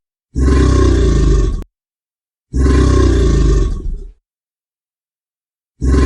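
An animal's roar, played three times: two roars of about one and a half seconds each with dead silence between them, and a third starting near the end.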